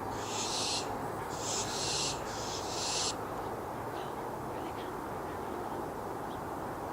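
Barn owl giving three harsh, hissing screeches in quick succession, each just under a second long, over steady low rushing background noise.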